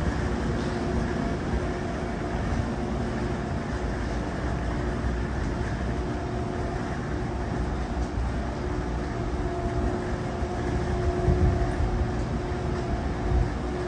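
Steady hum of a standing Amtrak train of Amfleet I passenger cars: a low drone with a few steady tones, the low rumble swelling a little near the end.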